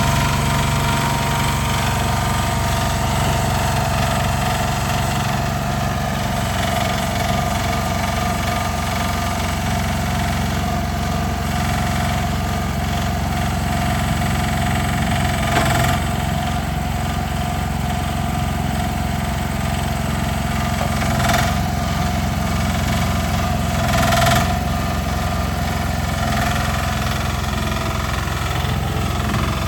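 Mini diesel excavator's small diesel engine running steadily. Three brief louder noises break in partway through, two of them close together near the end.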